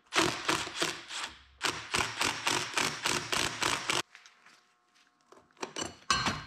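Cordless impact driver hammering bolts into a snowmobile's rubber track in two long runs of quick rattling pulses, with a brief pause between them. A few lighter clicks and knocks follow near the end.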